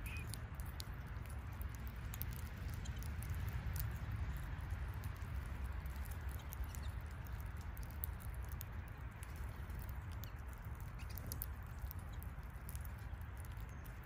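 Finches and northern cardinals pecking and cracking sunflower seeds and hopping on a bed of loose seed: many light scattered clicks and patter, over a steady low rumble.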